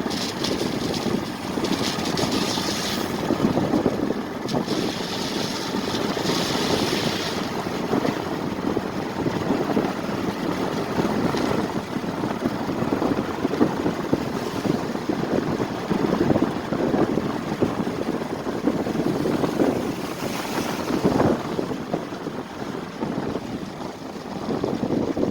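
Steady noisy rumble of an engine running, with wind buffeting the microphone.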